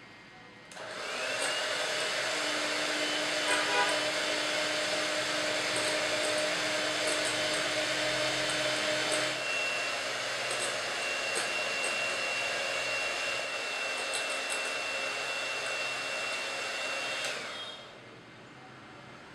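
Electric hand mixer beating whipping cream to soft peaks in a glass bowl. The motor spins up about a second in, runs with a steady whine, shifts pitch a little past halfway, and winds down and stops near the end.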